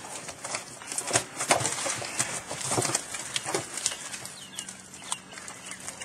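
Irregular knocks and clatter of fish and gear being handled in a boat, thinning out after about four seconds.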